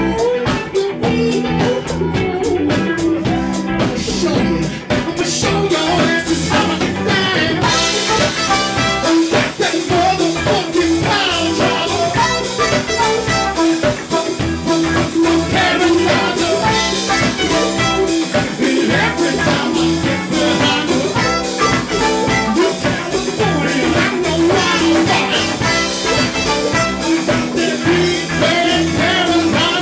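Live band playing a song with a drum kit and a steady beat; the cymbals come in much brighter about eight seconds in.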